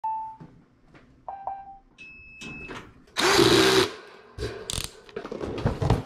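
A few short electronic beeps, then a power drill spins up and runs for under a second, followed by clicks and knocks of tools and parts being handled.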